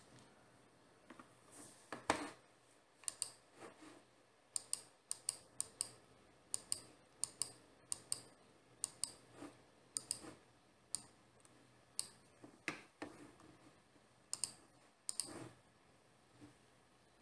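Faint, irregular clicks of computer keys being pressed, a few a second and often in quick pairs. They stop shortly before the end.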